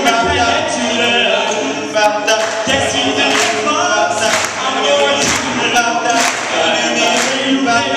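A four-man a cappella group of male voices singing in harmony into handheld microphones, with a sharp percussive hit about once a second keeping the beat.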